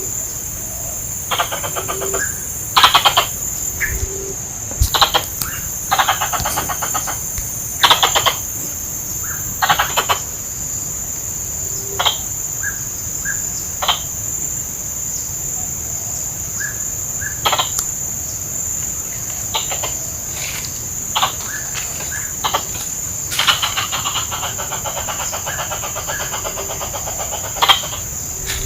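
Plantain squirrel (tupai kelapa) calling: about a dozen short bursts of rapid chattering, mostly under a second each, with a longer run of several seconds late on. A steady high-pitched whine runs underneath.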